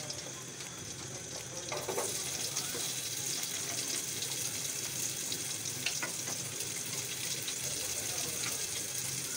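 Hot cooking oil sizzling in a pot, getting louder and brighter about two seconds in as chopped onions go into it, then a steady frying sizzle.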